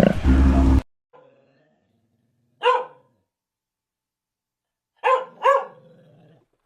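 A dog barking: one short bark, then a pause, then two quick barks in a row. A louder sound cuts off abruptly just under a second in.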